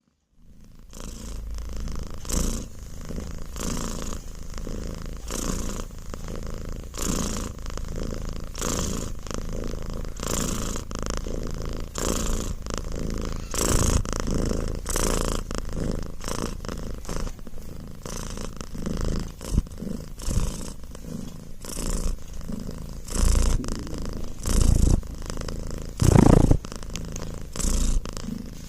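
Domestic cat purring steadily, the purr swelling and easing in a regular rhythm with each breath, about once every one and a half seconds. One louder, brief sound breaks in near the end.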